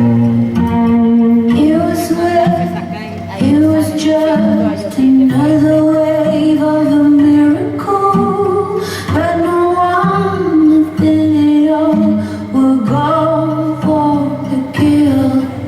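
Music with a woman singing long, held notes over low sustained accompaniment.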